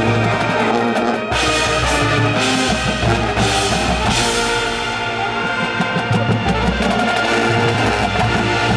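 Marching band playing live: held brass chords with tubas underneath, backed by the front-ensemble percussion, with several cymbal crashes in the first half.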